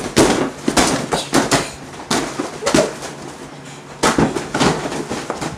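Oversized toy boxing gloves smacking as punches land, a rapid string of sharp hits in bursts with a short lull in the middle.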